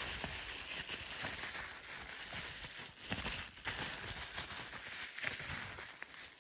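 Packaging rustling and crinkling as a boxed fire alarm panel is unwrapped by hand, with scattered small clicks and crackles.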